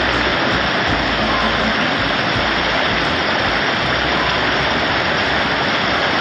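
Water of a waterfall stream rushing steadily over rock.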